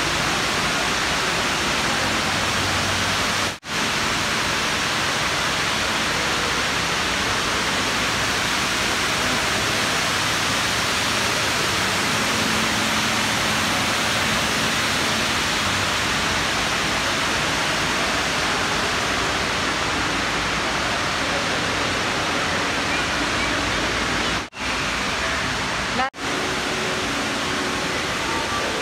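Dubai Mall's multi-storey indoor waterfall: water streaming down the wall and splashing into the pool below, a steady rushing noise. It cuts out briefly three times.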